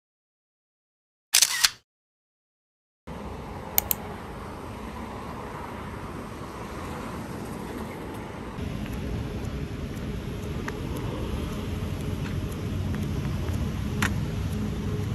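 A single camera-shutter click about a second and a half in, then, from about three seconds in, the steady traffic noise of a city street, growing a little louder partway through, with a few short clicks.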